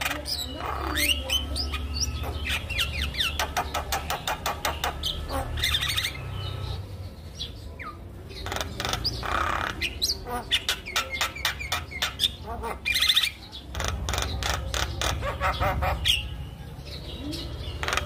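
Javan myna (jalak kebo) singing a long, varied song: quick runs of clicking notes mixed with whistles and harsh chatter, in bouts with short pauses.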